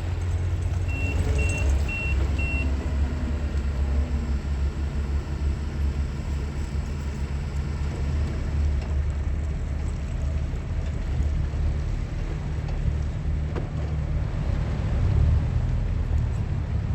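Heavy engine running with a steady low rumble. About a second in come four short, evenly spaced high beeps of a reversing alarm.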